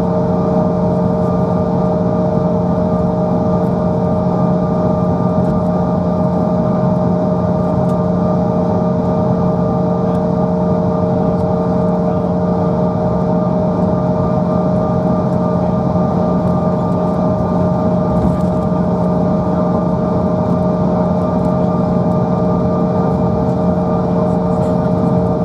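Cabin noise inside a Bombardier CRJ900 on the ground, its rear-mounted GE CF34 turbofans running at idle: a steady hum made of several held tones over a constant rushing hiss, with no spool-up.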